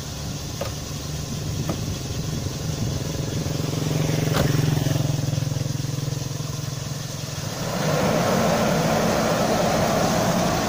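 Car engine running steadily at idle, with light clicks from the door in the first two seconds and a door shutting about four seconds in; about eight seconds in the engine gets louder.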